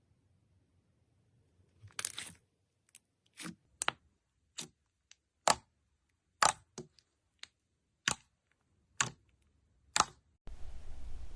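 Slime being pressed and poked, giving about ten sharp, separate pops and clicks a second or so apart. Near the end it cuts to a continuous dense crackling.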